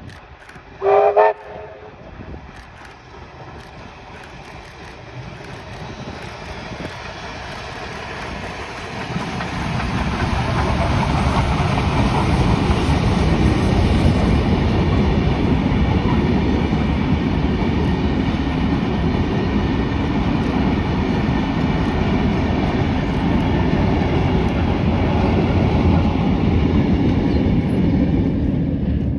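A steam locomotive gives one short whistle blast about a second in. Then the train passes close by: the locomotive and a long rake of passenger carriages make a loud rumble with rapid wheel clatter, building from about eight seconds in and staying loud until near the end.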